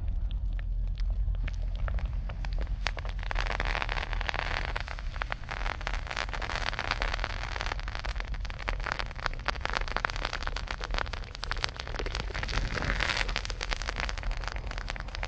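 Molten salt poured from a crucible onto a sweet potato, crackling and popping rapidly and irregularly, the crackle thickening about three seconds in as the pour reaches the potato. A steady low rumble runs underneath.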